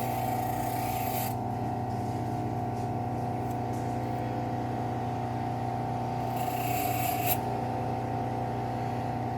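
Bench grinder running steadily with a Scotch-Brite wheel, and a steel knife blade pressed to the wheel giving a hissing scrape for about the first second and again for about a second from about six and a half seconds in, as rust and scratches are buffed off the blade.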